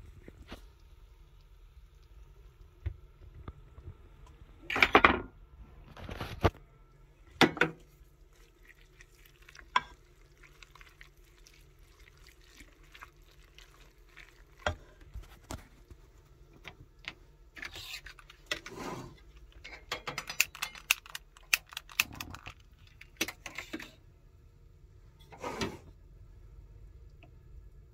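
A wooden spoon stirring pasta in a metal pot, with scattered scrapes and knocks against the pot's side, coming in short bunches.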